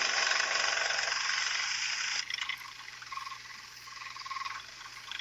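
Mini 1x30 belt sander running with a leather strop belt, a knife edge held against it for polishing. The loud running noise drops off sharply about two seconds in, leaving a much fainter whirr.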